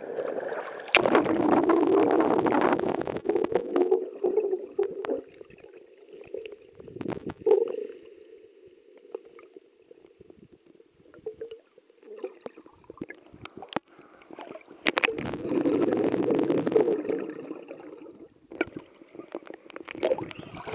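Sea water rushing and bubbling around a camera as it goes under water, heard muffled through the submerged housing. The churning is loud for a few seconds about a second in and again about fifteen seconds in, with quieter muffled underwater sound and scattered clicks between.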